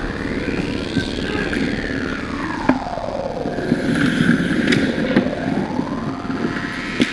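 Live ice hockey play at the goal crease: skates scraping the ice and a few sharp clacks of sticks and puck, over a hiss that sweeps down in pitch and back up.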